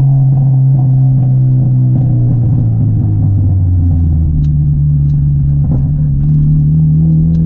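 Honda Civic EP3 Type R's K20 four-cylinder engine pulling under steady load. Its note holds level at first, then rises slowly from about halfway through.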